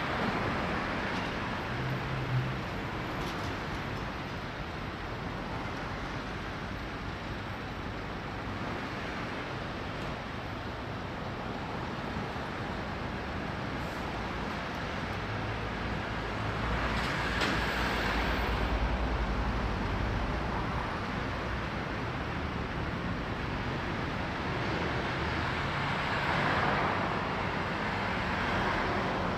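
Steady city street traffic: cars and trucks driving along a multi-lane road, with tyre and engine noise. It swells as louder vehicles pass around the middle and again near the end.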